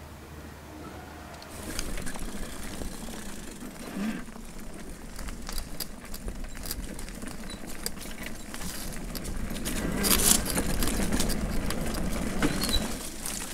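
Electric bicycle ridden along a dirt trail: tyre noise over the ground with frequent clicks and rattles from the bike, growing louder and rougher about ten seconds in.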